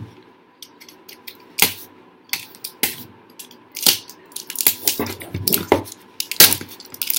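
Packaging being opened with a box cutter and handled: irregular sharp clicks and short scraping sounds, coming closer together near the end.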